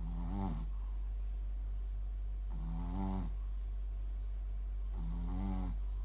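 Shih tzu snoring in its sleep: three pitched snores, one about every two and a half seconds.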